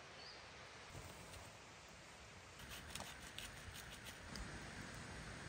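Steady hiss of rain falling in a forest, with a run of sharper taps of drops in the second half.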